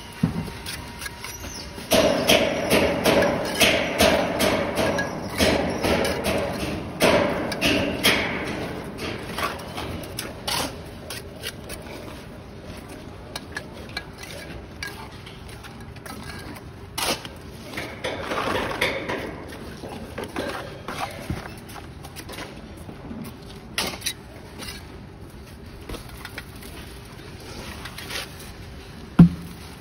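Steel trowel scraping and scooping wet mortar from a plastic tub and tapping hollow clay bricks into place: irregular scrapes with scattered knocks, longer scraping around the start and again about two-thirds through, and one sharp knock near the end.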